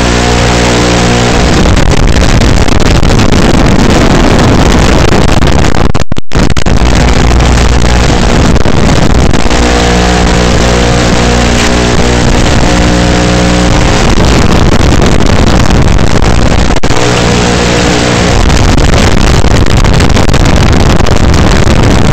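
Loud, steady hiss from an analog FPV goggle DVR recording, with a buzzing hum that comes and goes every few seconds and a brief dropout about six seconds in.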